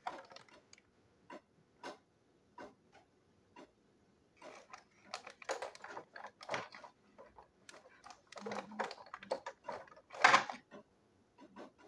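Irregular small clicks, taps and rustles of objects being handled on a tabletop. About ten seconds in there is one louder knock as a box on the table is shifted.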